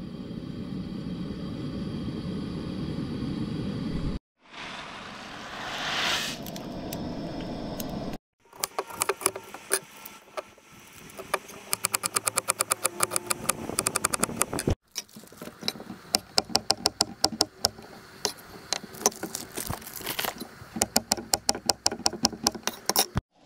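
A chef's knife chopping onion and then slicing smoked sausage on a wooden cutting board: quick runs of sharp knocks of the blade on the board, several a second. It opens with a few seconds of the steady low rush of a lit camp stove burner.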